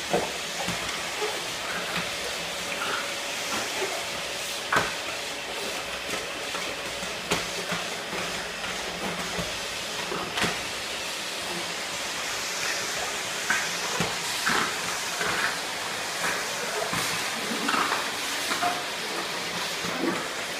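Vacuum cleaner running with a steady hiss, its floor nozzle knocking against the tile floor a few times as a French bulldog bites and shoves at it.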